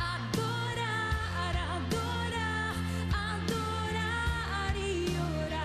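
A woman singing a Portuguese gospel song into a handheld microphone. She holds long notes with vibrato over an instrumental accompaniment with a steady bass.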